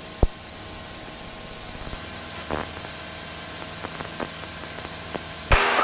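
Steady cabin noise of a single-engine propeller aircraft in cruise: an even hiss over a low engine drone, with a thin high steady whine. A sharp click about a quarter second in and another loud click near the end.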